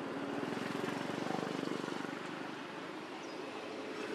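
An engine passing by, its low, rapid, even pulsing swelling to its loudest about a second and a half in and then fading away.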